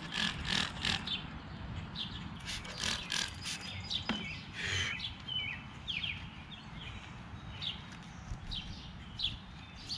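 A trigger spray bottle of degreaser squirting in quick short hisses onto a plastic headlight lens, in a burst near the start and another about three seconds in, with a rag rubbing the lens between and after. Birds chirp in the background.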